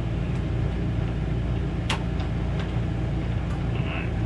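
Steady low machine hum under a few light clicks and rattles as a TV power cord is unstrapped and pulled free, with one sharp click about two seconds in.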